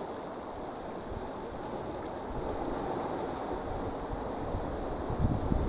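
Sea surf washing and breaking over a rocky shore, a steady rush of water, with wind buffeting the microphone in low rumbles near the end.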